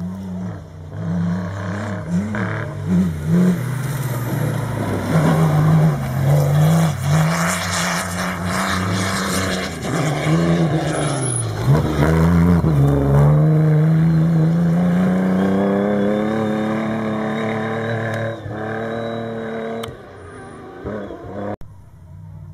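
Cross-country rally car approaching on a dirt stage, engine revving up and down through gear changes, passing close with a rush of tyre and dirt noise about halfway through, then accelerating away in one long rising note. The sound cuts off suddenly near the end.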